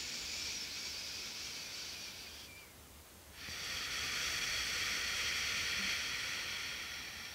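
A woman breathing slowly and audibly into a close headset microphone: one breath of about two and a half seconds, a short pause, then a longer breath that fades away.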